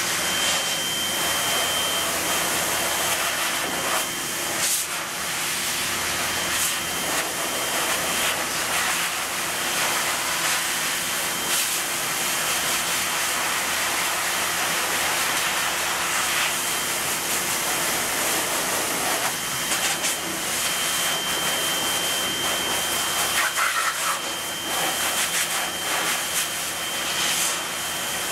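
Laube Magnum Force high-velocity pet dryer blowing through its hose nozzle: a steady rushing hiss of air, wavering a little as the nozzle is moved over the dog's head, with a faint high whistle at times.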